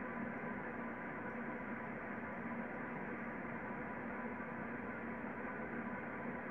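Steady low hum and hiss, with faint constant tones and no distinct separate sounds.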